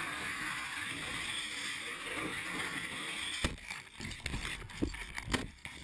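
Air rushing over the microphone of a GoPro Hero 2 taped to a squash as it flies through the air. About three and a half seconds in, it hits the ground with a sharp thump, followed by a string of knocks as it tumbles to a stop.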